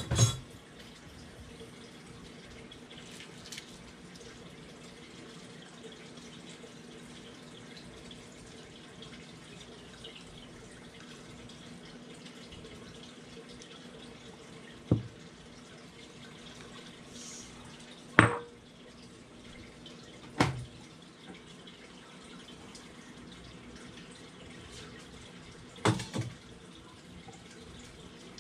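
Faint steady kitchen hum and hiss, broken by a few short sharp knocks of bowls, dishes and utensils being handled and set down on the counter. The knocks come several seconds apart, with two close together near the end.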